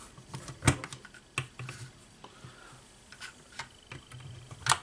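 Hard plastic chassis and gearbox parts of a 1/10 RC buggy clicking and knocking while they are handled and a metal shaft is pushed through the gearbox-case pivot. A few scattered light clicks, the loudest near the end.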